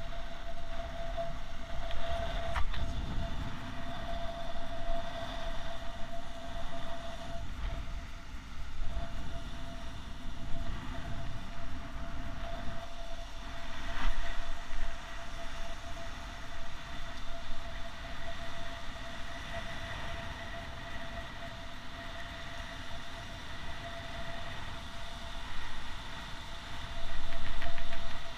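Wind buffeting the microphone over surf washing onto a sandy shore, a rumbling rush that swells and eases, with a steady thin hum throughout and a louder rush near the end.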